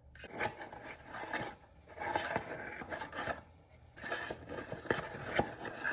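A spoon scraping and clicking against a container of dry baking ingredients, in three spells of a second or so each.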